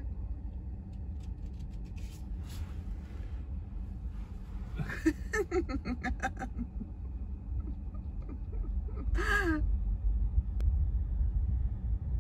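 Steady low rumble of a car creeping along slowly, heard from inside the cabin, with two brief wordless voice sounds: a short pulsing one about five seconds in and a rising-and-falling one about nine seconds in.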